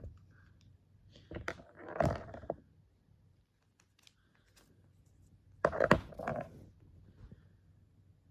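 A person sneezing twice, once about two seconds in and again about six seconds in.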